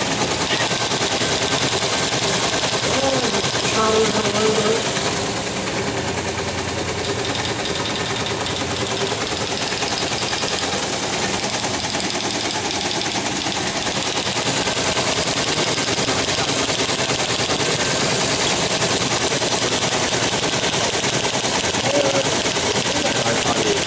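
Teletype Model 28 teleprinter printing incoming data at 75 baud: a continuous fast mechanical clatter from its typing mechanism that carries on unbroken.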